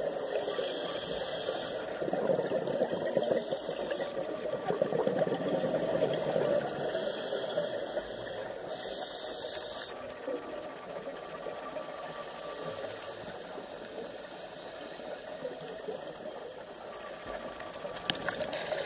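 Underwater sound heard through a diving camera's housing: a scuba diver's regulator breathing and rushing exhaled bubbles, swelling and fading every few seconds and growing quieter about halfway through.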